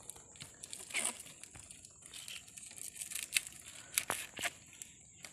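Fishing net rustling and crackling as a mud crab is worked free of it by hand, with irregular sharp clicks and snaps, the loudest about a second in and again around four seconds in.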